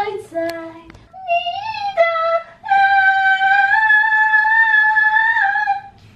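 A woman's very high-pitched, crowing vocal call: a short rising note, a break, then one long held note of about three seconds that falls away at the end.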